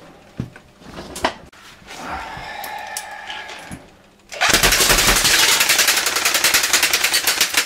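Airsoft gun firing one long full-auto burst, a rapid, even rattle of shots that starts a little past halfway in. Before it, a few scattered clicks and knocks.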